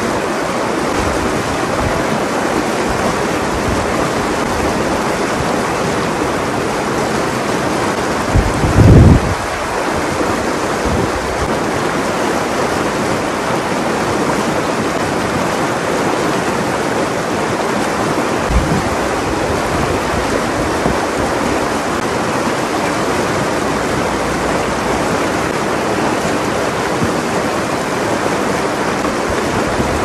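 Shallow river rushing steadily over rocks and riffles. A brief low rumble about nine seconds in is the loudest moment.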